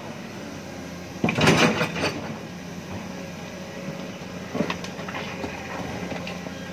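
Heavy diesel machinery running steadily as an excavator loads soil into a steel dump-truck bed. About a second in, a loud clattering rush lasts just under a second as a load drops into the bed, followed by a few lighter knocks later.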